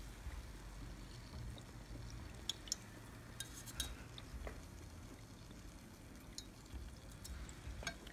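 Bugne dough frying gently in oil at about 180 °C in a stainless saucepan: a faint, even bubbling. A few light clicks come from the metal skimmer touching the pan.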